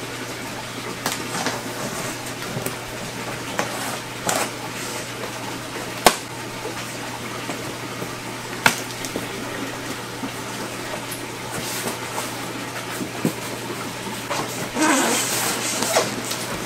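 Steady rush of running water from aquarium filtration over a low hum, with a few sharp knocks about 6 and 9 seconds in. Near the end comes a louder rustle and scrape as a cardboard shipping box's flaps are folded open over its styrofoam lid.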